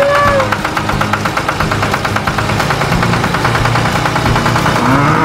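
Tractor engine chugging with a fast, even knock. A short pitched call sounds at the start and a rising one near the end.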